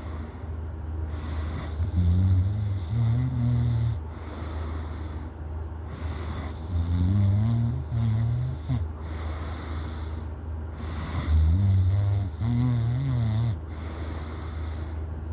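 A sleeping person snoring: three long, low snores about four to five seconds apart, with breathing between them.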